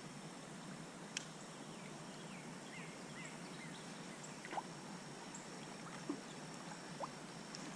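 Quiet outdoor ambience with a faint steady high tone, a short series of faint bird chirps about three seconds in, and a few light ticks.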